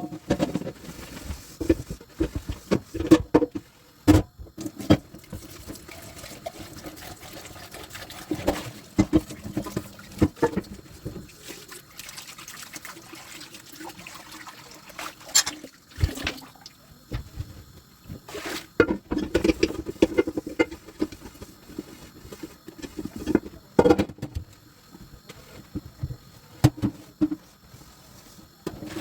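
Dishes being washed by hand at a kitchen sink: water running and splashing, with frequent sharp knocks and clatters of dishware throughout.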